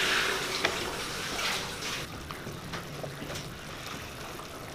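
A pot of chicken broth boiling: a steady watery bubbling, louder in the first two seconds and fainter after, with a few light clicks.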